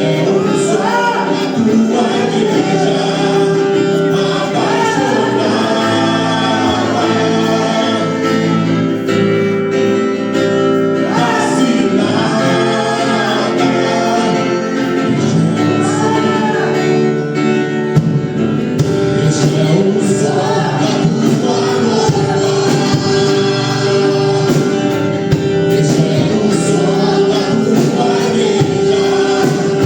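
Portuguese-language gospel worship song: singers and a choir holding drawn-out, gliding vocal lines over sustained band chords.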